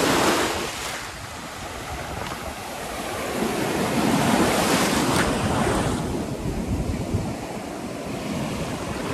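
Sea surf breaking and washing up the shore at the water's edge, swelling as a wave comes in near the start and again around the middle. Wind is buffeting the microphone.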